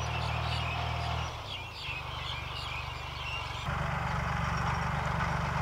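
Kubota L3608 tractor's diesel engine running steadily under load as it pulls a six-disc plough. The engine sound dips briefly about a second and a half in and comes back louder about two thirds of the way through.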